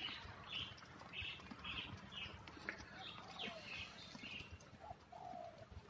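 A small bird chirping faintly and repeatedly, short high calls about twice a second, with a few lower calls about five seconds in.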